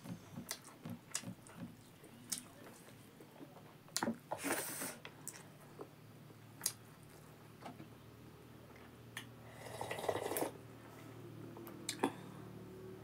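Close-miked eating sounds of a person eating rice and buffalo meat by hand: wet chewing and lip smacks with scattered sharp clicks, and two longer noisy slurps, around four seconds in and again near ten seconds, the second as soup is sipped from a bowl.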